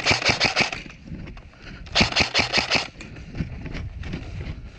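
Airsoft rifle firing two short fully automatic bursts, about ten shots a second, the second burst coming about two seconds in.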